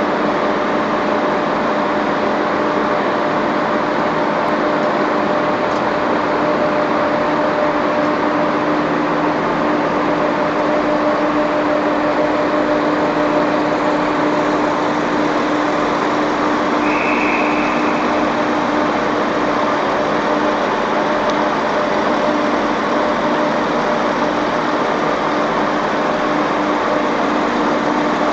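ScotRail Class 170 Turbostar diesel multiple unit idling at the platform, its underfloor diesel engines running steadily with a constant hum. A short high beep sounds about two-thirds of the way through.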